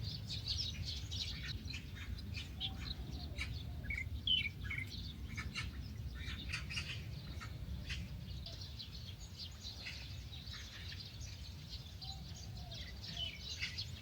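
Outdoor birdsong: many small birds chirping and calling in short, quick notes, over a steady low rumble.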